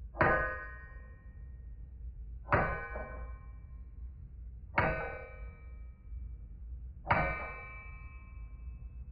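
A forging hammer striking steel on an anvil: four blows a little over two seconds apart, each ringing out with a metallic clang.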